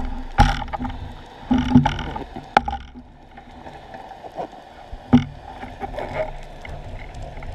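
Underwater sound picked up by a camera mounted on a speargun as a freediver kicks with long fins: a steady low rush of moving water, broken by sharp knocks and clicks. They come several times in the first three seconds and once more about five seconds in.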